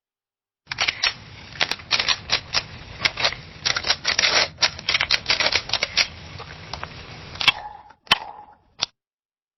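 Camera shutter clicking rapidly and irregularly, many clicks in quick succession for about seven seconds, then a few single clicks near the end.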